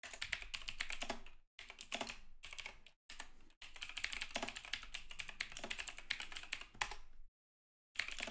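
Fast typing on a computer keyboard, coming in runs of keystrokes broken by short pauses, with a longer pause near the end before typing starts again.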